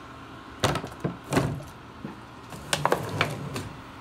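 Several sharp knocks and clunks of kitchen things being handled and set down: a plastic water jug and a cooking pot placed on the induction cooktop and table.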